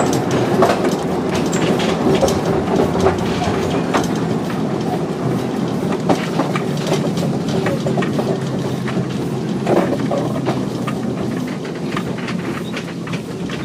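Carriage of the cable-hauled Scenic Railway incline running along its track: a steady rumble of wheels on rails with frequent irregular clicks and rattles, easing slightly near the end.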